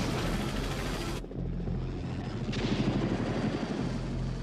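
Helicopter in low flight, its rotor and turbine running steadily with a low rotor chop. A little over a second in, the sound suddenly loses its high end and turns duller, then swells again for a moment near the middle.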